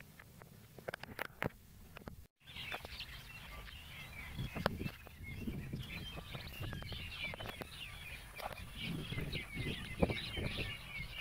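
A chorus of small birds chirping rapidly and continuously, starting about two seconds in. Under it are rustling and crackling of leaves and stems as a person pushes through dense brush.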